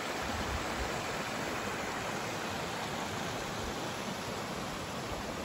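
Steady rush of creek water running over and between rocks in small cascades.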